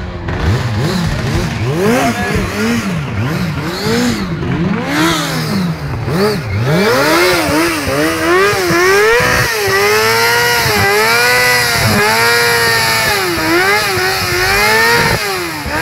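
Yamaha sportbike's four-cylinder engine revved hard while standing still. Separate throttle blips come first, each one rising and falling in pitch. From about halfway the revs are held high, dipping and rising again roughly once a second, then fall back near the end.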